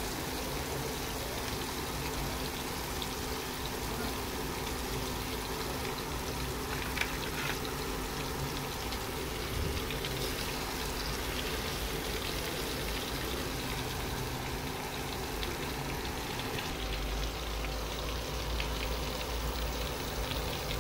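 Pieces of fish sizzling steadily in hot oil in a pan, with a few small crackles and pops.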